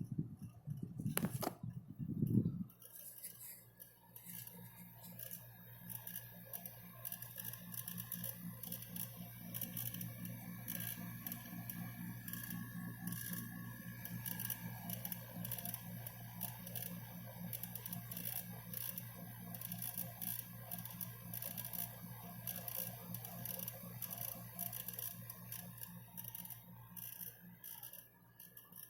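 Panasonic F-Y20EH 10-litre dehumidifier running with a steady low hum under a fast, irregular ticking rattle: the abnormal noise that four repairs have not cured. A few knocks sound in the first couple of seconds.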